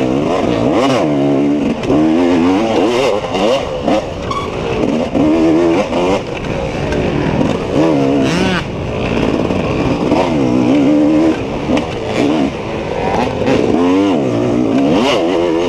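Engine of an off-road race machine revving hard and easing off over and over as it accelerates, shifts and slows through the course, its pitch climbing and dropping every second or two.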